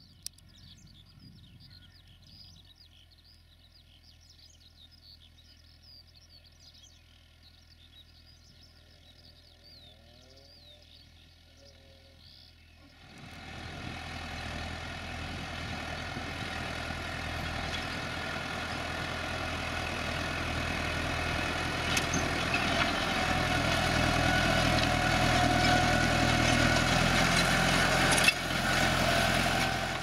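Faint birdsong over a low distant hum, then from about 13 s in a New Holland 6010 tractor's diesel engine working under load as it pulls a three-furrow plough uphill, growing steadily louder as it approaches. There is one sharp click near the end.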